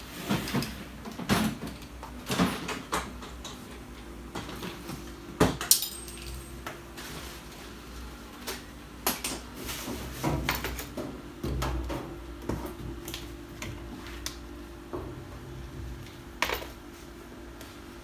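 Scattered knocks, clicks and clanks of hands and tools working at a top-load washing machine's metal cabinet, over a steady low hum.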